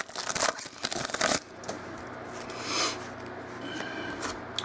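Crinkling and tearing of a football trading-card pack's wrapper for about the first second and a half, then quieter rustling as the stack of cards is handled.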